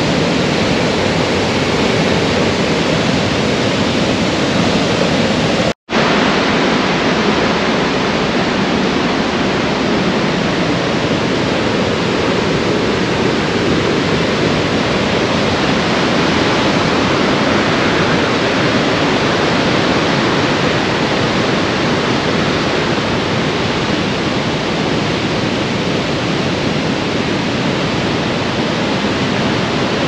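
Steady roar of the Iguazu Falls: a loud, continuous rush of falling water, cut off for an instant about six seconds in.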